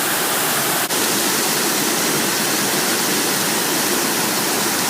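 Rushing water from a mountain stream or waterfall: a dense, steady rush with a brief dropout about a second in.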